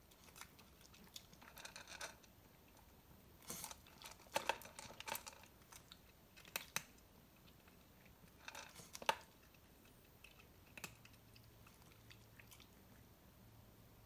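Cat crunching dry kibble: faint clusters of crisp crunches that stop about eleven seconds in.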